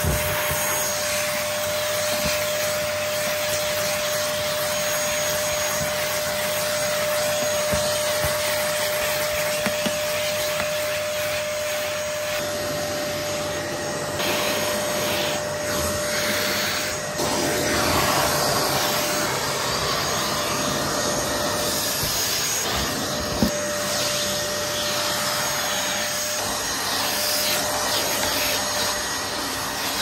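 Dyson DC08 Telescope cylinder vacuum cleaner running steadily: an even rush of air under a steady motor whine as its crevice tool and dusting brush are drawn over carpet, skirting and upholstery, picking up fluff and dust. A few small clicks and one sharp knock of the nozzle against a surface come through, the knock about three-quarters of the way through.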